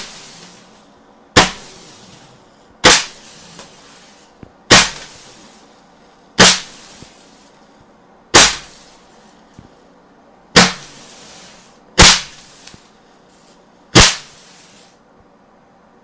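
A firework going off in a series of eight sharp, loud bangs, one every one and a half to two seconds, each trailing off in a short hiss.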